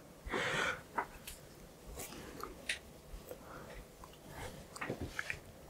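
Faint handling noise of in-ear monitors and their cable as they are fitted into the ears: a short soft rustle about half a second in, then scattered small clicks and ticks.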